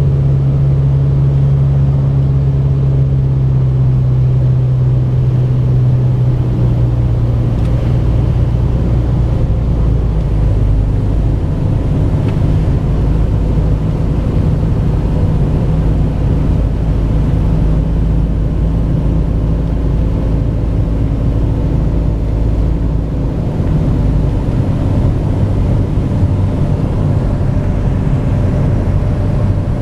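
Mooney M20J's Lycoming IO-360 four-cylinder engine and propeller droning steadily in the cabin on approach to landing. The pitch of the drone shifts about a quarter of the way in and again near the end as the power setting changes.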